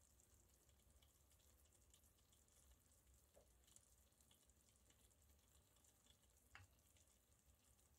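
Near silence: a faint even hiss, with two soft clicks, one about three and a half seconds in and one about six and a half seconds in.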